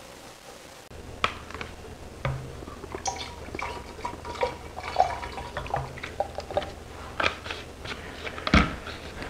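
Liquid concentrate being poured from a plastic bottle into a partly filled plastic pump-sprayer tank, with light plastic clicks and knocks as the bottle is handled and a louder knock near the end.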